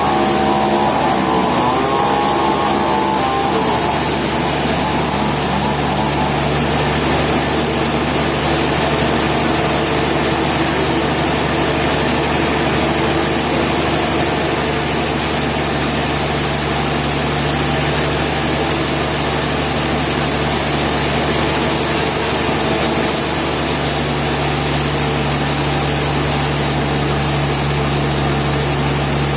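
An engine running steadily at a constant speed, with a wavering higher whine in the first few seconds that then fades into the steady noise.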